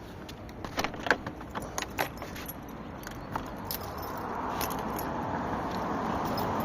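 Light metallic jingling and clicking, like small keys or tags shaken together, for about three seconds, then a steady rushing noise that grows louder toward the end.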